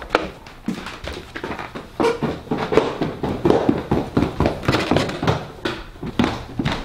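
Irregular footsteps and light knocks of someone moving about in a small, echoing stairwell, with some rustling.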